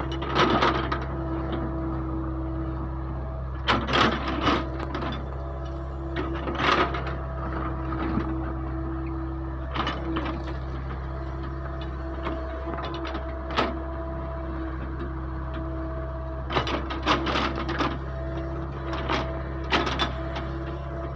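Backhoe's diesel engine running steadily, with a hydraulic whine that swells and fades. About a dozen irregular knocks and clatters of the bucket and material come as it loads a mini dump truck.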